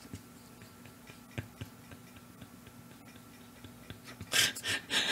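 Faint scattered clicks over a low steady hum, then about four seconds in a man's breathy, pulsed laughter.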